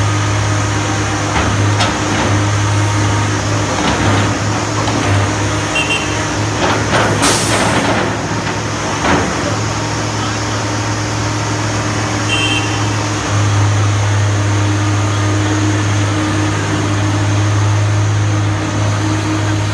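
Komatsu PC300LC telescopic-arm excavator's diesel engine running with a steady low hum, with a short loud hiss about seven seconds in and a few knocks around it.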